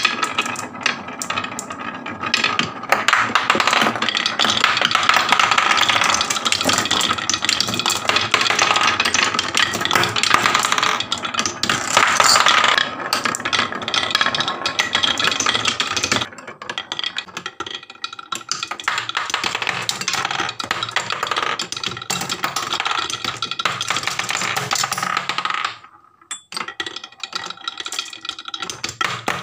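Glass marbles rolling and clattering down wooden marble-run tracks, a dense rattle of clicks as they bounce over wavy and bumpy wooden chutes. The clatter thins after about sixteen seconds, breaks off briefly near the end, then more marbles roll again.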